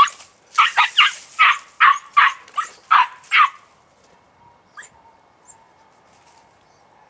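Young podenco puppy yapping in a quick run of high-pitched barks, about nine in three and a half seconds, then falling quiet apart from a faint yip or two.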